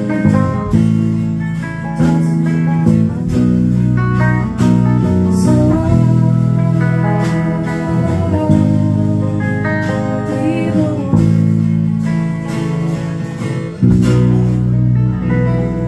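Acoustic guitar strummed in changing chords, with a woman singing over it.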